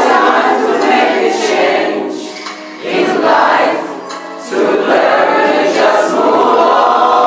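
Background music with a choir singing long, held phrases that swell in three times.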